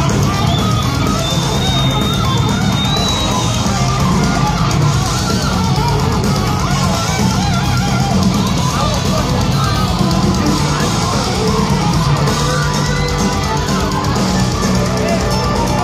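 A live heavy metal band playing loud, with distorted electric guitars and a drum kit.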